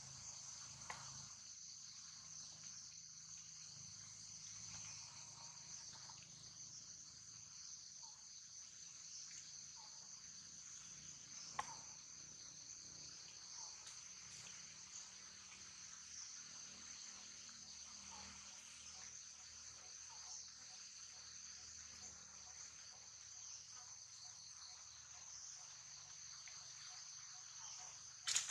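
Faint, steady high-pitched chorus of insects, unbroken throughout, with a single sharp click about twelve seconds in and another right at the end.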